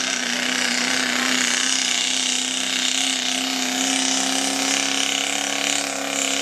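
Turbocharged Chevrolet Duramax diesel pickup engine held at full throttle under heavy load while pulling a weight-transfer sled, a steady drone with a high hissing whine over it.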